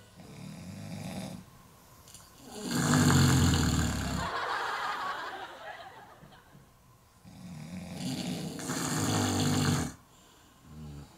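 A man snoring heavily: three long snores a few seconds apart, the loudest one about three seconds in.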